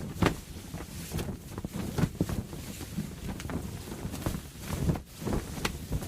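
Canvas sail flapping in strong wind: a steady low wind rush broken by irregular sharp snaps and cracks of the cloth, several a second at times.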